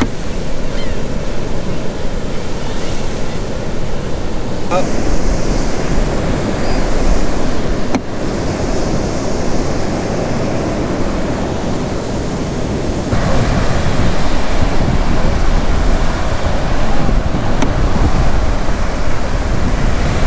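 Ocean surf washing on a beach, with wind buffeting the microphone. The noise changes abruptly about 5, 8 and 13 seconds in.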